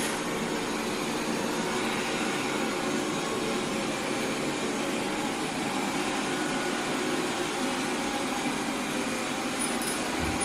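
Xiaomi Mi robot vacuum cleaner running with a steady whirring hum.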